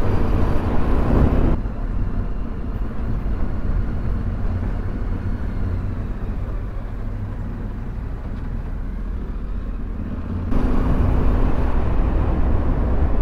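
Yamaha Ténéré 700's parallel-twin engine running steadily under way, with rushing noise over it. The rushing noise drops off abruptly about a second and a half in and comes back near the end.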